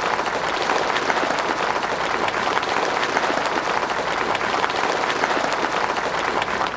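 Large crowd applauding, many hands clapping at once in a dense, steady spread of claps; it begins to die away near the end.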